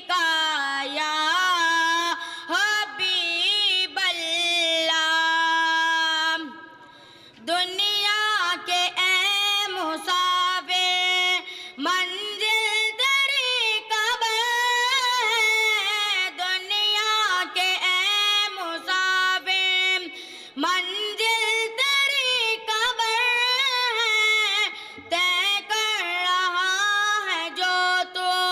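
A boy singing a naat unaccompanied into a microphone: one high child's voice in long held phrases that bend up and down in pitch, with a short breath pause about seven seconds in.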